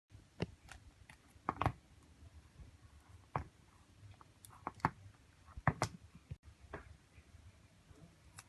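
Irregular light clicks and taps of small hard tools and parts being handled during phone repair work, about a dozen spread unevenly, several close together.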